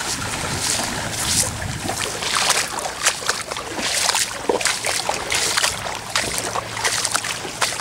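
Footsteps wading and walking through shallow water and wet grass: a splashing, rustling swish with each stride, repeating about once or twice a second.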